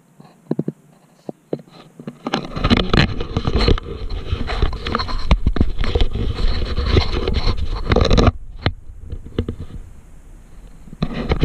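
Handling noise on an action camera: fingers rubbing and knocking on the camera housing, a few clicks at first, then a dense run of scrapes and knocks over a heavy rumble from about two seconds in, easing off after about eight seconds.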